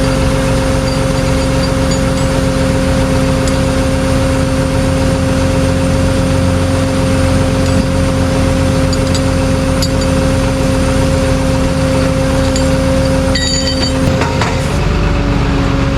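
Truck engine running steadily with a constant hum, its pitch dipping and settling slightly lower near the end.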